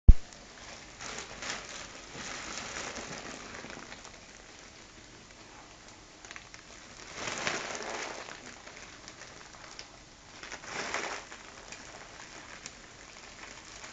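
A foil helium balloon crinkling as it is handled and squeezed, with several rushing hisses of about a second each as helium is drawn out of it by mouth. A sharp knock at the very start.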